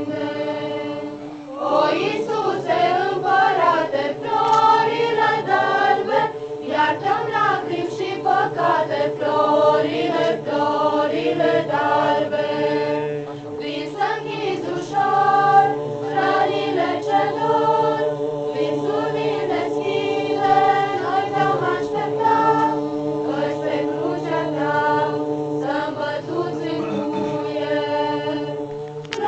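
A mixed group of men's and women's voices singing a Romanian Christmas carol (colind) together, unaccompanied. There is a short break for breath about a second in, then the singing carries on without stopping.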